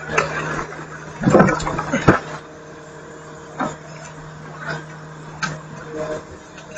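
Garbage truck's engine idling with a steady hum, while a string of knocks and clatters comes from yard waste being handled and loaded. The loudest cluster of clatters is about a second in, with single knocks following every second or so.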